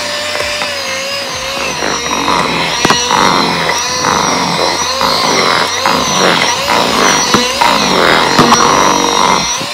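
Electric hand mixer running, its twin beaters whisking thick brownie batter in a bowl; a steady motor whine that wavers slightly in pitch as the beaters work the batter.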